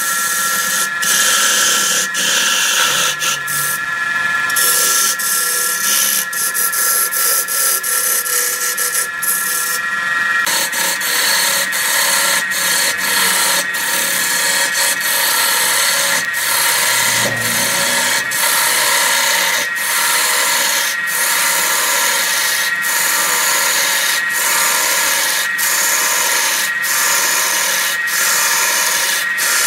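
Wood lathe running while a gouge cuts into a spinning wood blank: a steady hiss of tool on wood and flying shavings over the even hum of the lathe.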